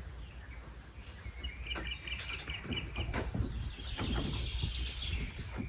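A bird calling outdoors: about a second and a half in, a quick run of about eight short high notes, over a low rumbling background noise.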